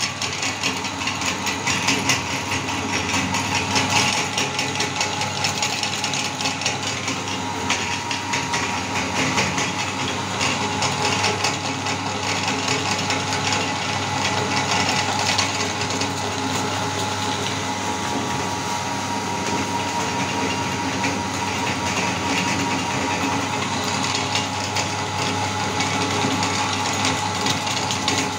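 Electric meat grinder running steadily, its motor humming and its auger turning in a cast-metal hopper, with a continuous fine rattling and clicking.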